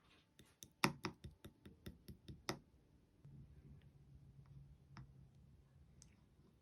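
Clear slime being handled, giving a quick run of about nine sharp clicks and pops in the first two and a half seconds, then a few faint, scattered clicks.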